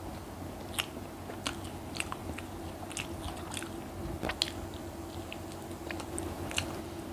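A person chewing a mouthful of egg toast close to the microphone: irregular crisp, wet mouth clicks over a steady low hum.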